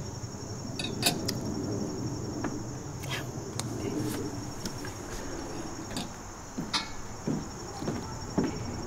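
Crickets chirping steadily in a high, even drone, with a few light clicks and taps scattered through it.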